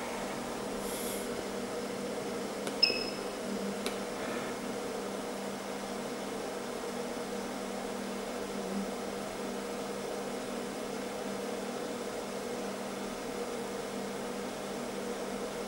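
Nd:YAG laser treatment machine running with a steady hum. About three seconds in, its control-panel key gives one click and a short beep, and a softer click follows a second later.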